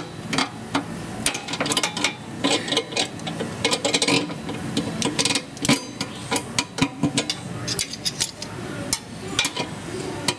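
Irregular metallic clicks and clinks of a combination wrench and locking pliers on the bolt and nut of a threaded-insert installation tool, as the wrench is worked on the nut in short strokes.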